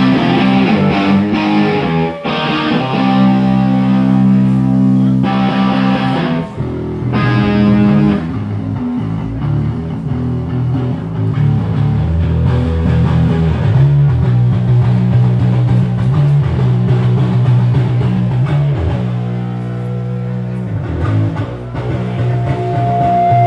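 Rock band playing live during a sound check: distorted electric guitar over bass guitar, holding long sustained chords.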